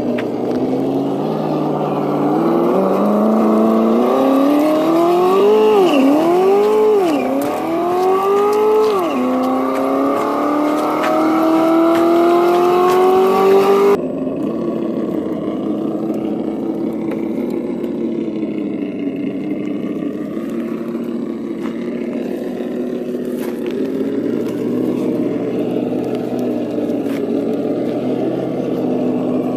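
Simulated truck engine sound from an ESS-One sound module, played through the RC crawler's onboard speaker and following the throttle: it climbs in pitch, blips up and down three times, then climbs steadily again. Halfway through it cuts off abruptly and runs on at a lower, steadier pitch.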